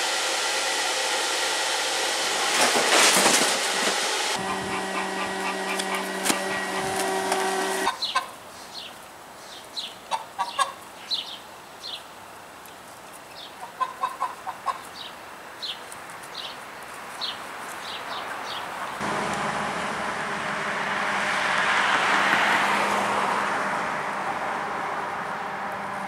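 Geese calling in short, scattered squawks and honks for about ten seconds in the middle. Before them there is a steady rush of noise followed by a few seconds of steady hum; after them, a broad rush of noise that swells and fades.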